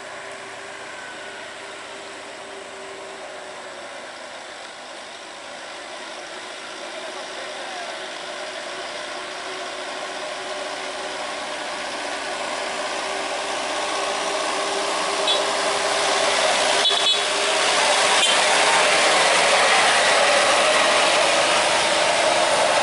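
Isuzu Elf light box truck driving toward and past, its diesel engine and road noise growing steadily louder, loudest as it goes by near the end.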